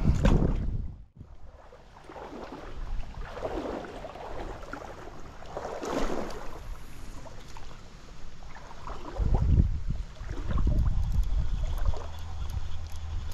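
Stream water splashing and sloshing in several uneven swells, with a steady low wind rumble on the microphone setting in near the end.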